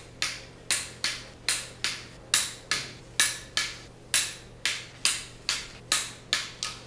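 Sharp, short clicks or taps repeating at about two and a half a second, fairly even, over a faint steady hum.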